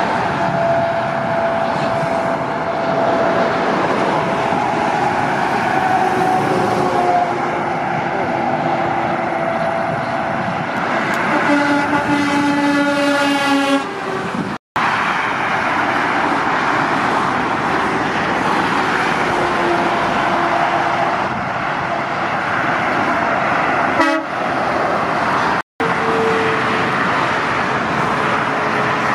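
Heavy trucks and cars passing on a motorway, a steady rush of tyre and engine noise. About halfway through, a truck's horn blows for a couple of seconds. The sound cuts out for a moment twice.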